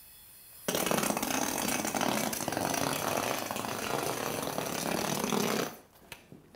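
Fizz yo-yo spinning and rolling along a hard floor on its string, a steady whirring noise that starts abruptly about a second in and stops shortly before the end.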